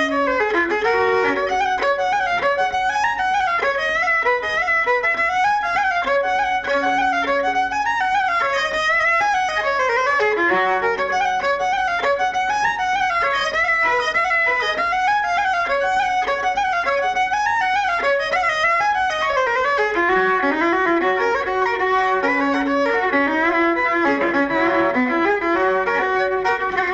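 Fiddle-led Irish céilí dance music: a quick tune of rapid, running notes at a steady, even loudness.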